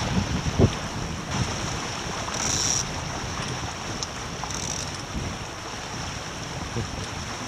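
Wind buffeting the microphone over the rush and splash of water along the hull of a small sailing dinghy under way.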